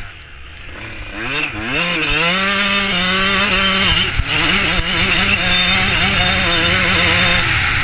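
Motocross bike engine heard from the rider's helmet: briefly off the throttle, then revving up about a second in and held at high revs with small rises and dips, easing off near the end. Wind rushing over the helmet.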